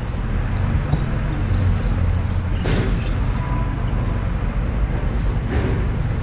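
Steady low background rumble, with short high chirps repeating about once a second and two brief sharp sounds, one near the middle and one near the end.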